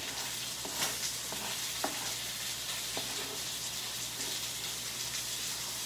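A few light taps and scrapes of a chef's knife on a wooden cutting board as fresh dill is chopped, over a steady hiss.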